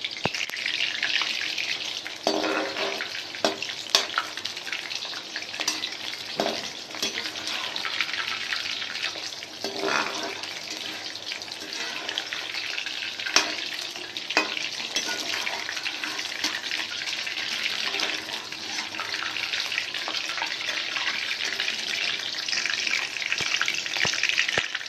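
Batter-coated chicken pieces deep-frying in hot oil in a steel kadhai, a steady sizzle, with a handful of short knocks as a metal slotted spoon stirs the pieces and scrapes against the pan.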